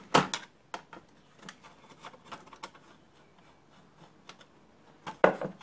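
Scattered clicks and metal knocks from handling the sheet-metal casing of a homemade battery charger while taking it apart, with a sharp knock just after the start and a louder clatter near the end.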